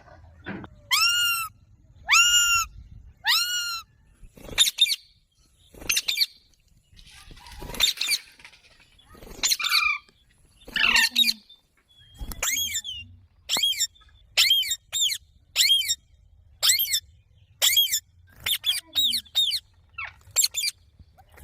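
Green parrot calling in a series of short, harsh, arched squawks. The calls come about a second apart at first and grow quicker, roughly two a second, in the second half.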